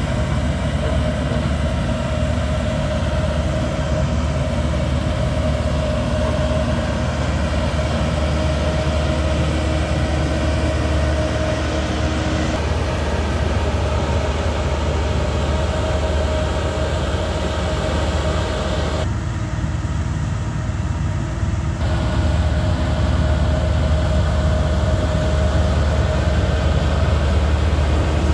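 HAMM 3410 single-drum road roller's diesel engine running steadily with a deep hum as the roller travels over loose sand fill.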